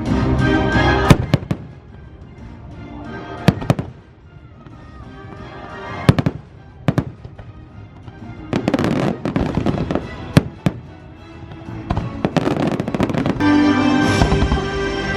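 Fireworks shells bursting in irregular volleys of sharp bangs over an orchestral show soundtrack playing over loudspeakers. The bangs come thickest about nine to eleven seconds in and again around twelve to thirteen, and the music swells near the end.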